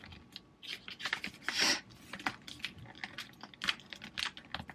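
Christmas wrapping paper being folded and creased by hand around a small box: a run of quick, irregular clicks and taps, with a short rustle of paper about a second and a half in.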